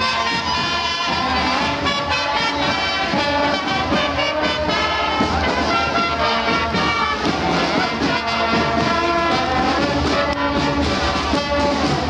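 A brass band playing, a steady run of held brass notes.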